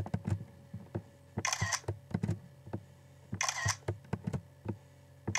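Mac OS X screenshot camera-shutter sound, played twice about two seconds apart, with a third one starting at the very end. Light clicks fall in between.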